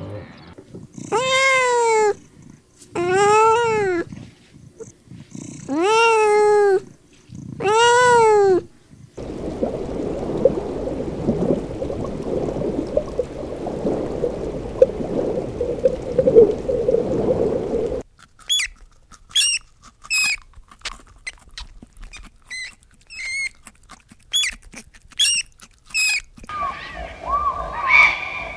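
A water buffalo calf bleating four times, each call about a second long and rising then falling in pitch. Then a steady underwater water noise, followed by a quick string of short, high squeaky calls.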